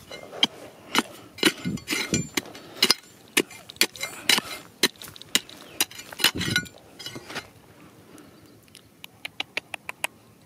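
A small metal spade repeatedly striking and scraping into dry, stony dirt, about two strokes a second, with soil and pebbles scattering. The digging stops a little after seven seconds in, and near the end there is a quick run of light clicks.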